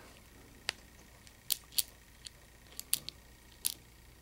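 Small sharp metallic clicks, about seven, spaced unevenly, as the core of a Master Lock padlock is worked out and its pin tumblers come loose.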